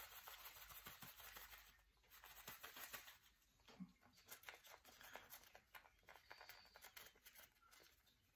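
Faint rustling and clicking of fishing pellets being worked down into a PVA bag inside a plastic loading tube, with the crinkle of the bag's film; busier in the first couple of seconds, then sparse.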